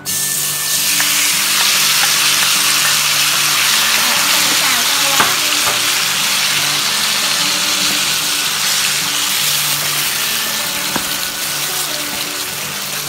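Chili-marinated chicken and onion sizzling loudly in hot oil in a nonstick frying pan. The sizzle starts suddenly as the mixture hits the oil, then goes on steadily while a wooden spatula stirs it, with an occasional light tap on the pan.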